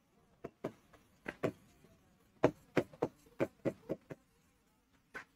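Pen tip tapping and clicking against an interactive whiteboard screen during handwriting: a string of short, sharp taps, thickest from about halfway through.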